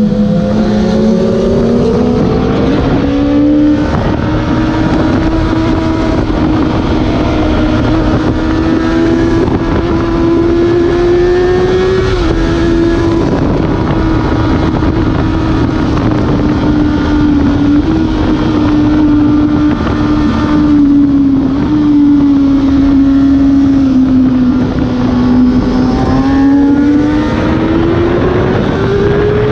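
Kawasaki ZX-6R inline-four engine at high revs under hard riding, heard from on board with heavy wind rush. Its pitch climbs over the first few seconds, holds high with small shifts, sags about twenty seconds in and climbs again near the end.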